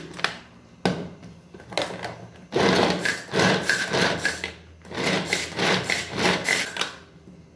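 Hand-operated pull-cord food chopper mincing garlic: the cord is yanked again and again, the blades spinning and rattling the cloves in the bowl in two runs of quick pulls, each about two seconds long. A few short knocks come first.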